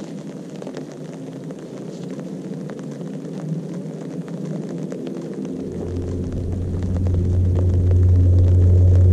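A low, steady rumble that grows much louder from about halfway through, when a deep bass hum comes in.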